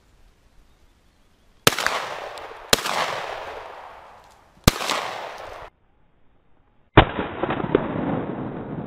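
Four shotgun blasts, each trailing off in a long echo: the first two about a second apart, a third about two seconds later, and a fourth about two seconds after that, duller than the others.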